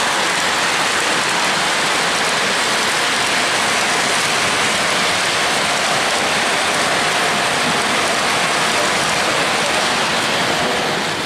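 O-gauge model trains running on three-rail track: a steady hissing rumble without a clear clickety-clack, fading away near the end.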